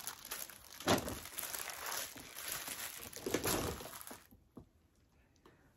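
Crinkling and rustling of plastic packaging being handled, with a sharper crackle about a second in; it stops about four seconds in.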